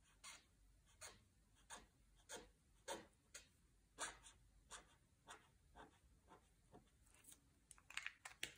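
Faint scratching of a black felt-tip pen on paper: short separate strokes, roughly two a second, as a zigzag of pointed teeth is drawn. A few quicker small clicks come near the end.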